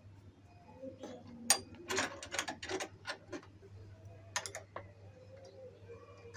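A spanner and steel mounting parts clicking and clinking as a nut is tightened on a scooter's mirror mount. The clicks come in quick runs, most around the middle and briefly again later.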